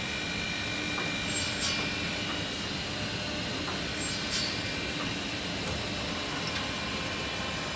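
Automatic multi-spindle wood drilling and square-notch cutting machine running: a steady machine noise with a high whine, broken by a few short bursts of hiss and faint clicks as its pneumatic clamps and drill heads cycle.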